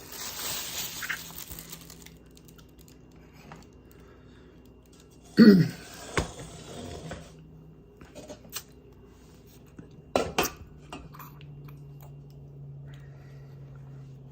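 Dishes and utensils being handled: a few scattered clinks and sharp knocks, with a brief hiss at the start.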